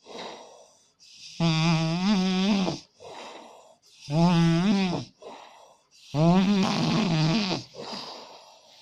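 A man snoring heavily in his sleep: three loud, long, rattly snores about two seconds apart, with softer breaths between them. This is the severe snoring of obstructive sleep apnea.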